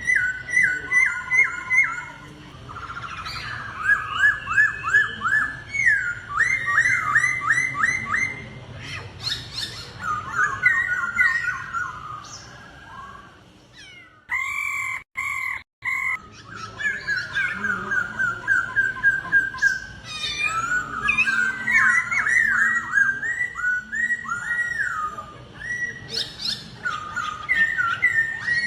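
Laughingthrush (khướu) singing loud, fast runs of repeated whistled notes, many of them sliding, in rhythmic phrases. The song breaks off suddenly for a moment about halfway through.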